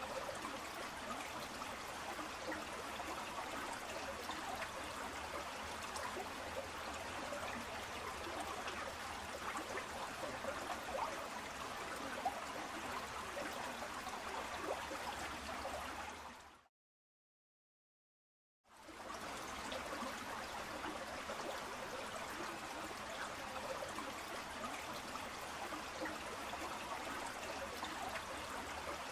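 Fast mountain river rushing over rocks: a steady, even water noise, broken by about two seconds of total silence a little past the middle.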